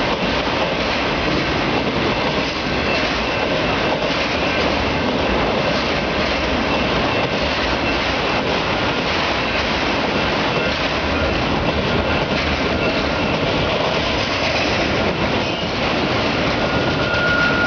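Freight train of autorack cars rolling past at steady speed: a continuous rumble of wheels on rail, with faint steady high-pitched tones above it.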